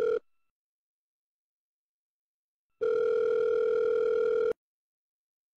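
FaceTime outgoing call ringing, the call not yet answered: a steady single-pitched tone that cuts off just after the start, then sounds again for nearly two seconds about three seconds in.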